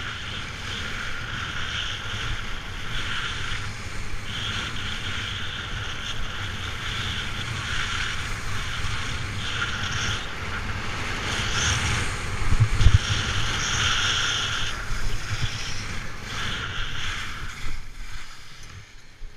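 Skis or board edges sliding and scraping over hard-packed snow on a fast run down a piste, the hiss swelling and easing with each turn, with wind rumbling on the microphone. It quietens near the end as the rider slows to a stop.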